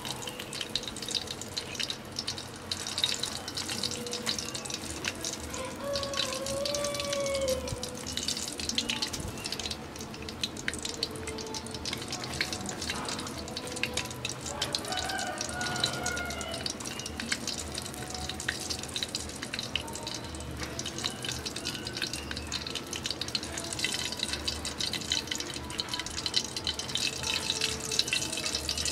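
Battered fish pieces deep-frying in a wok of hot oil: a steady, dense crackling sizzle.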